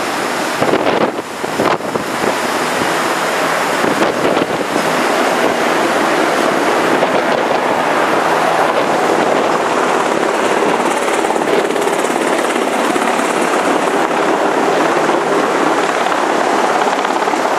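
Steady rush of churning seawater between the hulls of two ships steaming close alongside each other while refuelling at sea.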